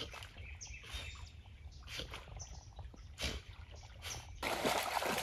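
Faint, scattered chirps of small birds. About four seconds in, the sound turns suddenly louder and closer, a wash of splashing and rustling, as the retrieving Lab comes out of the water into the reeds.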